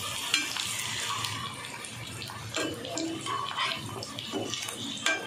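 Grated-potato rösti patties sizzling and crackling in shallow oil in a non-stick pan, with a few scrapes and taps of a perforated metal spatula as the patties are turned; the sharpest tap comes near the end.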